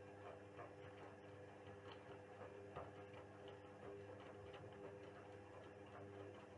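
Indesit WISL 62 front-loading washing machine running mid-wash, faint: a steady low motor hum with soft, irregular ticks and clicks from the turning drum.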